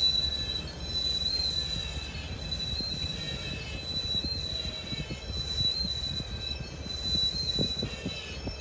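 CSX freight train of autorack cars rolling past, its wheels giving a steady high-pitched squeal over the low rumble of the cars, with a few clacks near the end.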